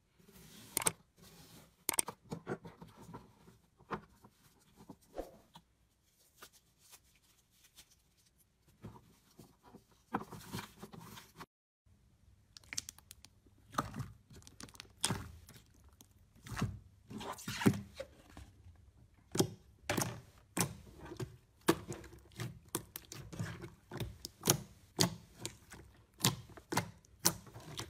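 A knife cutting through a crumbly green soap block with soft crackles and scrapes. After a short break, about halfway through, hands squeeze, poke and stretch glossy slime, making a rapid series of sticky clicks and pops.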